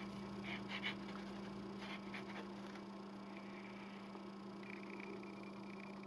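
Faint steady electrical hum, with a few soft scratchy strokes in the first couple of seconds as a glue nozzle is run along the paper around an envelope's opening.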